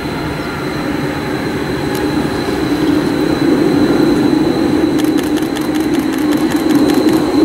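Two Stuttgart DT8.12 light-rail trains running toward the listener, their running hum growing louder as they approach. From about five seconds in, a quick series of clicks from the wheels on the track joins it.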